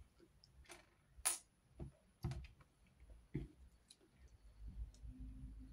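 Small plastic LEGO pieces clicking and tapping as 1x2 slanted tiles are pressed onto bricks: a handful of separate sharp clicks, the loudest about a second in.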